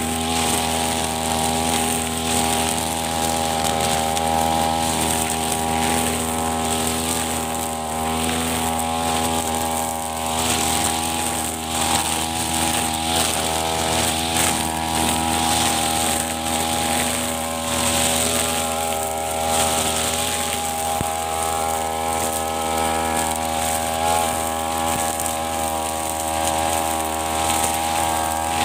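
Backpack brush cutter's small petrol engine running steadily at high throttle as its cutting head mows long, overgrown grass, with only slight dips in speed.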